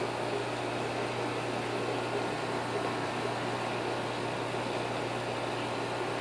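Aquarium filtration equipment running: a steady low hum under an even hiss.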